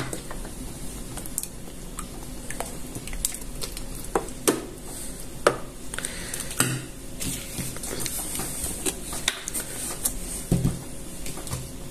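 Scattered light clicks and knocks of kitchen handling: the Thermomix's plastic measuring cup and an oil bottle being handled as cooking oil is measured and poured into the mixing bowl. A few sharper knocks come around the middle.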